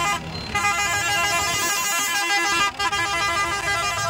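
Several vehicle horns sounding together as a steady chord with a fast, even warble, over a tractor engine running. The sound dips briefly twice.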